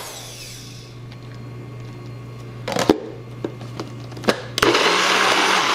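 NutriBullet personal blender pulsing chunky tomato salsa: the motor's whirring cuts off right at the start, a few sharp clicks follow as the cup is worked on the base, then the motor runs again for about a second near the end.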